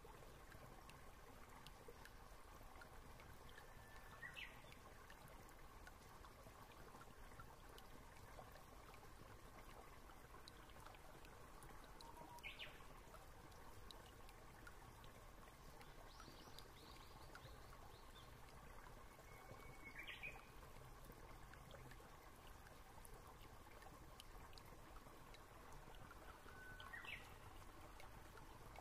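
Near silence: faint room tone, with four faint short chirps spaced about eight seconds apart.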